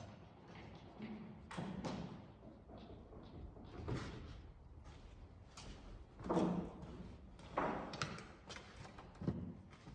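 Scattered knocks and clunks of tools and lumber being handled at a workbench, irregular and sparse, with the two loudest about six and a half and seven and a half seconds in.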